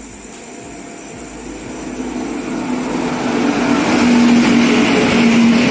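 Indian Railways electric locomotive hauling an express train into the station and passing close by: a rushing rumble with a steady hum that grows louder over the first four seconds, then holds as the locomotive goes by.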